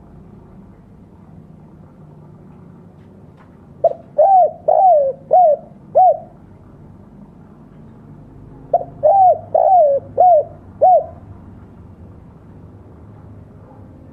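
Spotted dove (tekukur) cooing in two phrases, each of five notes that rise and fall in pitch. It is the 'kuk dua' call, ending in a double 'kuk', which keepers favour for training and luring other doves.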